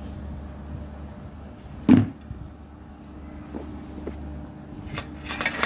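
One dull, loud thump about two seconds in, and a short rustling clatter near the end, over a steady low hum.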